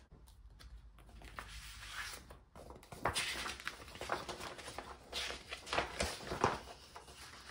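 Rustling and crinkling of paper and packaging being handled while K-pop album contents are sorted through, irregular and scratchy with quick bursts of crackle.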